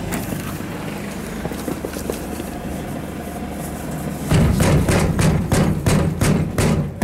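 Prize-pushing arcade machine being worked, with a rapid, irregular run of knocks and rattles starting about four seconds in, over a steady arcade hum.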